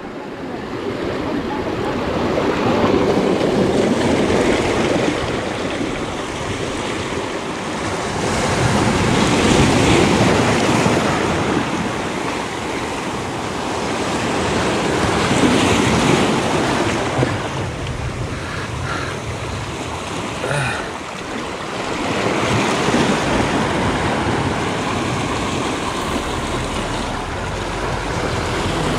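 Sea surf washing in over shoreline rocks and draining back, the sound swelling and easing every several seconds, with a few small knocks about two-thirds of the way through.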